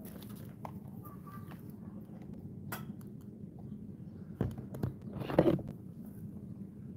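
Steady low outdoor background hum with scattered small clicks, then a cluster of knocks and rustling from about four and a half seconds in, the loudest just before the end, as the camera is handled and moved.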